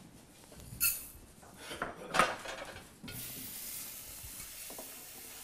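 Kitchen dishes and utensils clinking, two short ringing knocks about one and two seconds in, then a steady hiss that starts suddenly about three seconds in and keeps up.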